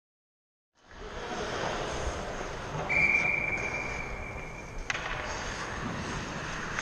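After a second of silence, the noisy background of an indoor ice hockey rink. About three seconds in, a referee's whistle blows one steady high note for about two seconds, cut off by a sharp click.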